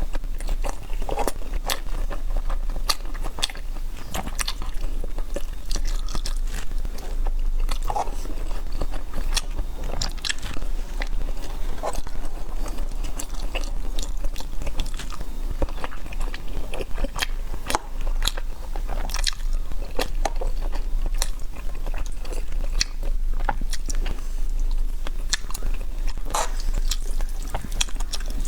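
Close-miked eating sounds: someone biting and chewing food, with many irregular crunchy, wet clicks, over a steady low hum.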